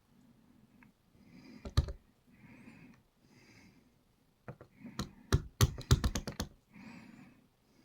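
Small sharp clicks and taps of tiny metal lock pins, springs and tweezers being handled while a dimple lock is taken apart, a pair of clicks about two seconds in and a quick scattered run of clicks in the second half.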